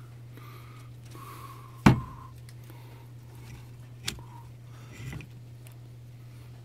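Parts of a disassembled gear-reduction starter motor knocking as they are handled on a workbench: one sharp knock about two seconds in, a lighter one about four seconds in and a short rattle a second later, over a steady low hum.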